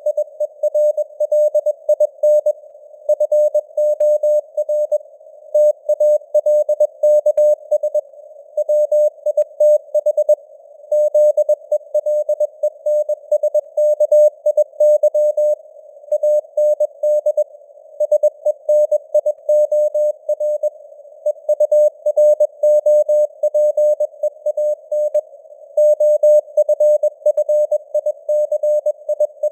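Morse code at 21 words per minute: a single mid-pitched tone keyed on and off in dots and dashes, over simulated radio hiss, with the signal strength fading up and down (QSB).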